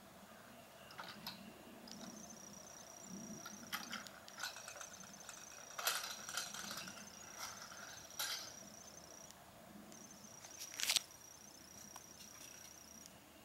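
Insects trilling steadily in a high pitch that breaks off and resumes, over a few sharp clicks and rattles from a child's bike with training wheels rolling on asphalt. The loudest rattle comes near the end.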